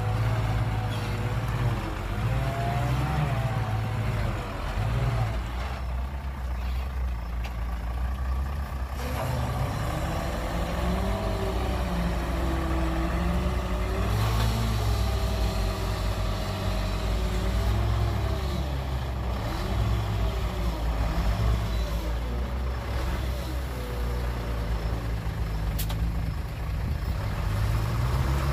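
Fuso dump truck's diesel engine running, its revs rising and falling as the hydraulic hoist raises the loaded tipper bed to dump soil.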